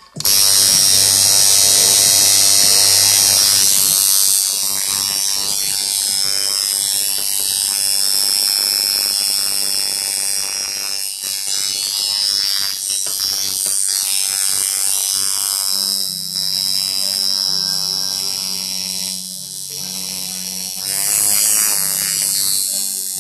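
Coil tattoo machine buzzing steadily, switched on abruptly at the start and running as the needle works into skin.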